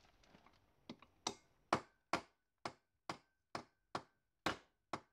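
Small wooden-handled hammer tapping a metal tube to drive the main jet out of a Zenith-Stromberg 175CD2SE carburettor body. About eleven evenly paced taps, roughly two a second, starting about a second in, some with a short metallic ring. The jet is not seized and is moving out freely.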